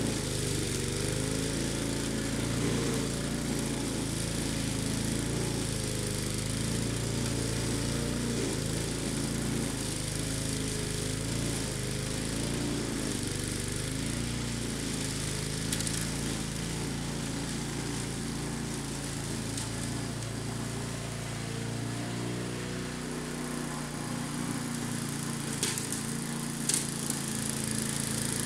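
Walk-behind gas lawn mower running steadily while cutting tall ragweed, its engine note wavering slightly. A few sharp clicks come near the end.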